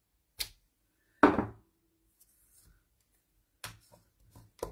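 Hard plastic knocks of a clear acrylic stamp block on paper on a desk: a small click, then a sharper, louder knock about a second in. Near the end comes a quick run of small plastic clicks as a stamp ink pad's case is handled.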